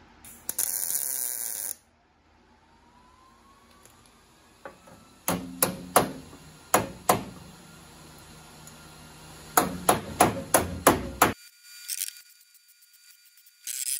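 Hammer striking sheet metal in two quick runs of blows, the panel ringing between strikes, as the metal is worked into shape to fit. A short burst of hissing comes near the start.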